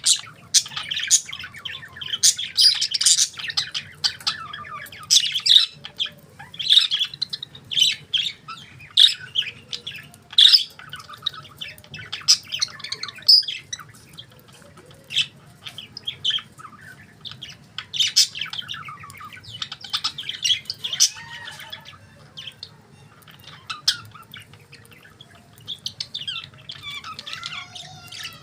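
Pet budgerigars chirping and squawking in a quick, irregular run of short, sharp high calls. The calls grow sparser and turn to softer warbling chatter near the end.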